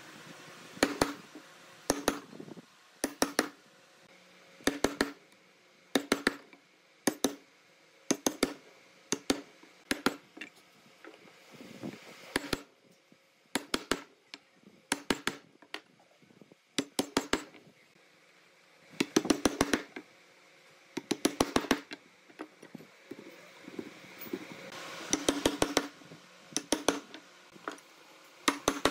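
Wooden mallet striking a wood-handled chisel, chopping a mortise into a hardwood slab: sharp knocks in quick groups of two to four, a group about every second, with short pauses.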